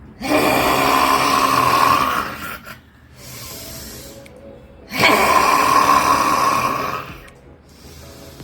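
A person snoring: two loud, rattling snores of about two seconds each, the second starting about five seconds in.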